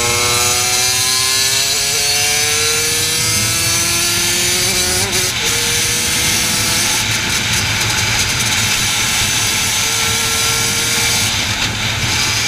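Racing kart engine at full throttle, its pitch climbing steadily for about five seconds as the kart accelerates, then holding high, with a brief dip near the end.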